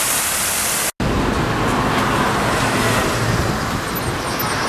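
Fountain jets splashing into the basin as a steady hiss for about a second, then, after a cut, steady city street traffic noise.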